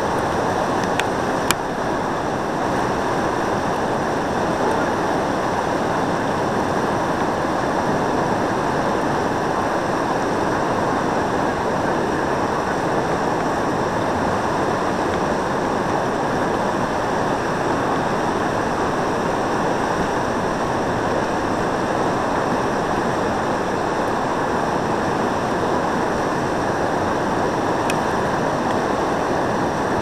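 Steady rush of whitewater pouring over a river ledge, churning without a break.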